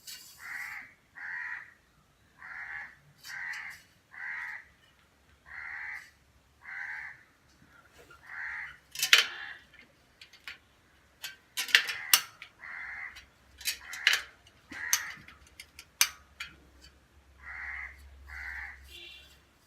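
A crow cawing over and over, short harsh calls about once a second. Sharp clicks and knocks from work on the bicycle wheel are mixed in; the loudest come about halfway through.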